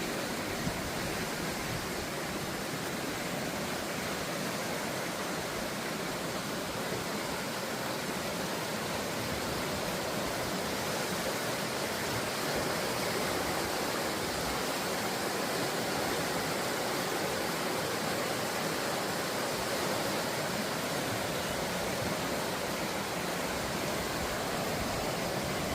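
Steady rushing of water from a stream or waterfall swollen by heavy rain, an even noise with no change throughout.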